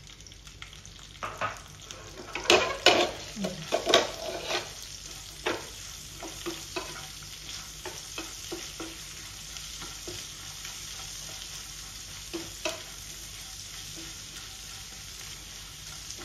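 Smoked pork and freshly added sliced onions sizzling in a non-stick frying pan, stirred with a wooden spatula that scrapes and knocks against the pan. The knocking is loudest and busiest a couple of seconds in, then becomes lighter and sparser over the steady sizzle.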